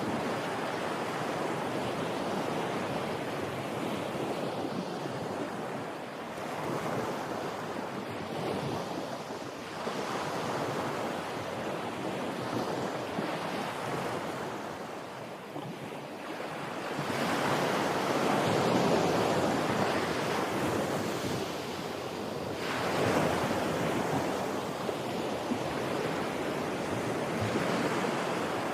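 Ocean surf washing on a shore: a continuous rush of water that swells and falls back in slow waves, with the biggest surge about two-thirds of the way through.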